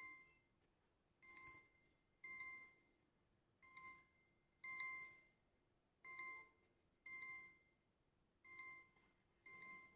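Redmi A5 smartphone alarm tone: a short chime-like note at the same pitch, repeated about once a second in a slightly uneven rhythm.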